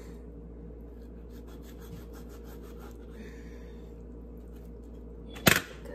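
Knife cutting and scraping through a raw turkey carcass on a cutting board: faint scratching strokes over a steady low hum, then one sharp knock about five and a half seconds in.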